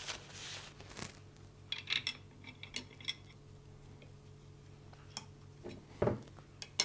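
Scattered small clicks and light clinks of saildrive parts being handled and fitted by hand, a cluster of them a couple of seconds in and single ones later, with a soft rustle of a paper tissue at the start. A faint steady low hum runs underneath.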